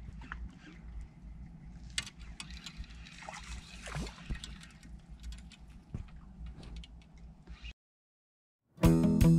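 Water gurgling and sloshing over a steady low rumble, with scattered sharp clicks and knocks. The sound cuts off suddenly about eight seconds in, and acoustic guitar music starts just before the end.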